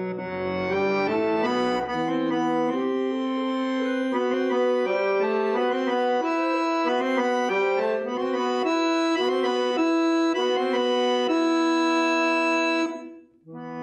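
Syrnai (Kazakh accordion) playing a melody over sustained chords. The playing breaks off sharply about a second before the end, then a new held chord starts.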